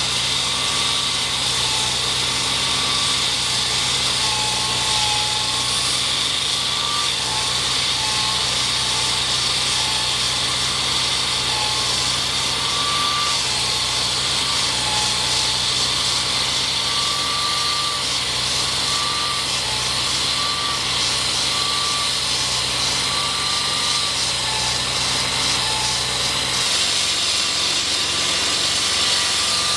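Construction machinery running steadily, with a continuous hiss and a low engine hum that changes about 27 seconds in.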